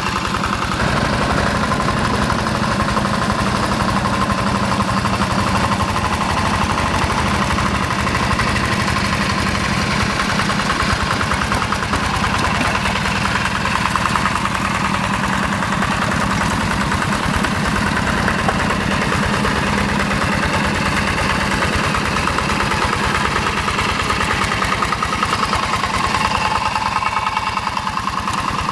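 Yanmar TF85 single-cylinder diesel engine of a two-wheel hand tractor running steadily with a rapid, even chugging beat as it works through paddy mud.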